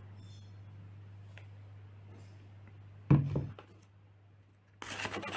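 Faint trickle of water poured from a plastic measuring jug into a pot of dry grey tile grout. About three seconds in there is one short knock. Near the end a steady gritty scraping starts as the grout is stirred.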